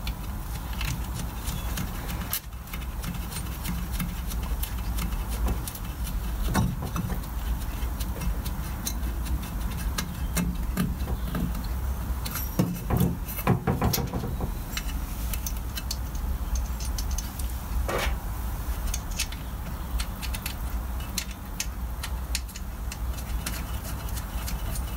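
Light metallic clicks and taps of star washers and nuts being fitted by hand onto the studs of a Citroën 2CV stub axle and drum brake backing plate, with a few louder knocks, over a steady low hum.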